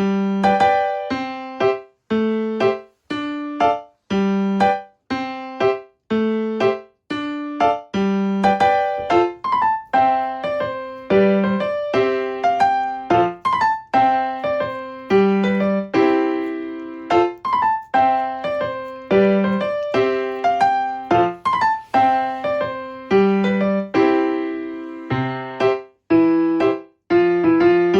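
Background music: a light piano or electric-piano tune of separate plucked-sounding notes, each dying away, in a steady repeating rhythm.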